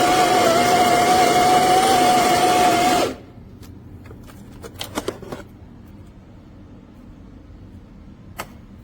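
Electric conical burr coffee grinder motor running steadily with a high hum, cutting off suddenly about three seconds in, followed by a few light clicks and taps.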